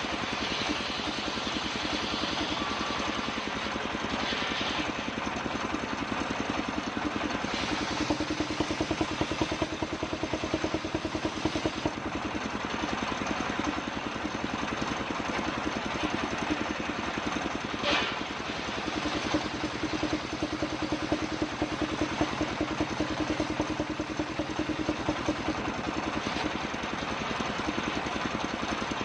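Circular saw rig ripping kapok wood into boards. The engine or motor runs on with a fast, even pulsing, and a steady hum strengthens for several seconds, about eight seconds in and again past halfway, as the blade cuts.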